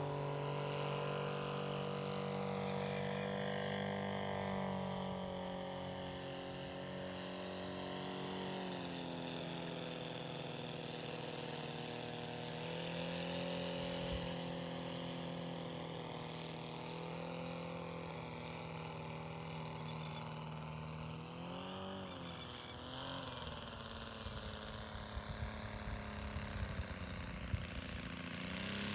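The engine and propeller of a one-third-scale radio-controlled Blériot XI model aircraft droning in flight. The pitch steps down a few times as it is throttled back, then wavers around three-quarters of the way through as the model comes in to land. A few sharp clicks and knocks come near the end.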